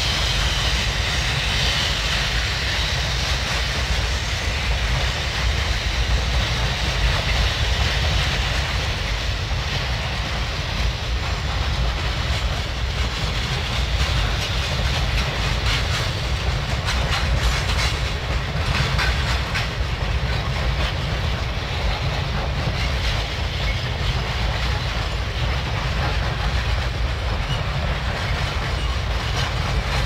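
Freight cars of a steam-hauled train rolling past, wheels clattering over the rail joints and the cars clanking, over a steady rumble. A run of sharper clanks comes about halfway through.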